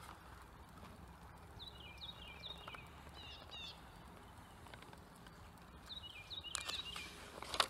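Quiet outdoor field with a small bird calling in short runs of quick downslurred chirps, several times. Near the end, rustling and a few light knocks as a donkey noses a picture book's pages.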